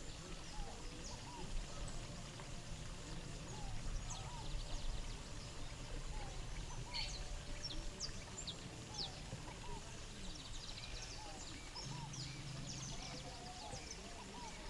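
Birds calling, many short repeated chirps and small arched calls over a low, even outdoor background.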